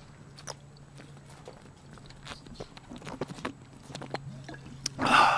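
A man gulping peach Nehi soda from a bottle: a run of small wet swallowing clicks, then a louder rush of breath about five seconds in as he comes off the bottle.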